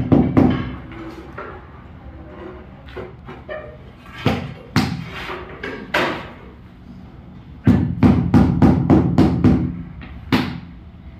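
Rubber mallet knocking large floor tiles down into their mortar bed to level them. A few single knocks, then a quick run of about eight knocks at about four a second, and one more near the end.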